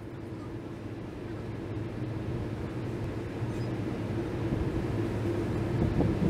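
A crane's engine running, a steady low drone with a low hum and a higher held tone that grows gradually louder.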